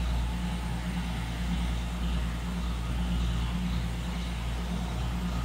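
A steady low mechanical hum under an even wash of background noise.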